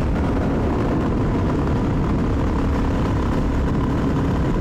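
Suzuki DR-Z400's single-cylinder four-stroke engine running steadily under way at around 50 km/h, with wind rushing over a lapel microphone.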